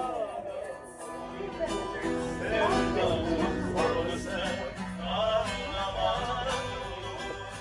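Live acoustic music: a guitar strummed with a voice singing along, played by musicians in a ferry's passenger cabin.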